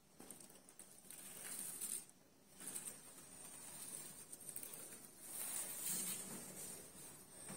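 Faint hiss and soft rustling handling noise from a handheld phone being moved over a paper model, swelling twice, about a second and a half in and again near the end.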